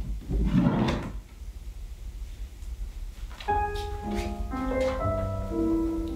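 Piano accompaniment for a ballet barre exercise starting about three and a half seconds in, with single notes and chords changing about every half second. Before it, in the first second, there is a brief noisy sound.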